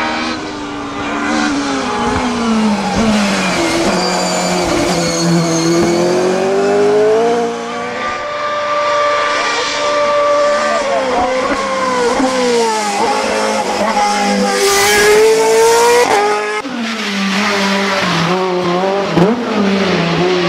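Racing car engines revving hard, the pitch climbing and dropping again and again with gear changes and braking. About 16 seconds in the sound breaks off and a different engine takes over.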